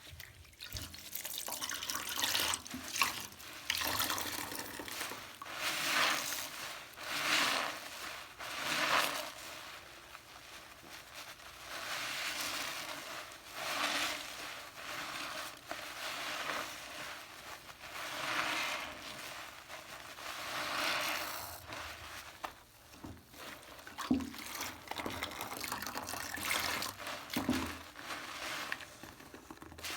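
Water swishing and splashing in irregular swells every second or two, each rising and falling away.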